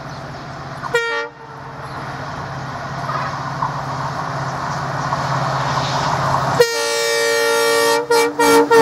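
WDG-4D diesel locomotive approaching, its EMD two-stroke engine running with a steady low drone that grows louder as it nears. Its horn gives one short blast about a second in, then a long blast near the end that breaks into several short toots.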